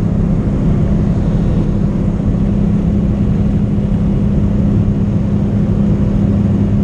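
Steady drone of a skydiving jump plane's engine and propeller in flight, heard from inside the cabin as a loud, even hum.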